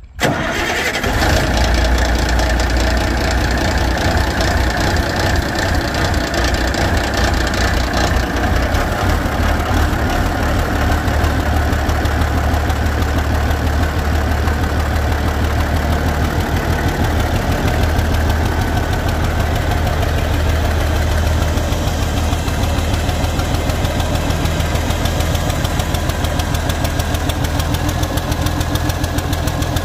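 Allis-Chalmers turbocharged diesel truck engine, open on a trailer with a straight vertical exhaust stack, catching abruptly right at the start and then running steadily with a deep, even exhaust pulse.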